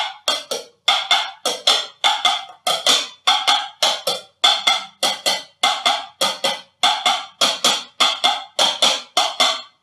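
Two bowls knocked rim against rim in a steady clip-clop rhythm, the knocks coming in pairs about every 0.6 seconds, in the classic imitation of horse hooves trotting.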